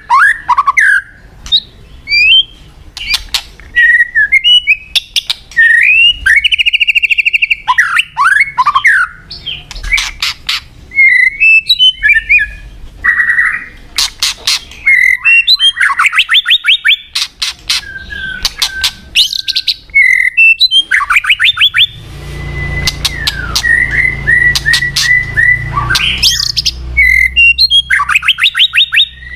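White-rumped shama singing a varied, loud run of whistled phrases, fast trills and sharp clicking notes with short breaks between them. A low rumble sits under the song for a few seconds in the second half.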